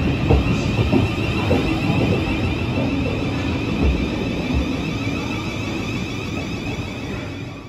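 Thameslink Class 700 electric train departing past the platform, its wheels rumbling on the track with a steady high whine over it, easing off toward the end as the last car goes by.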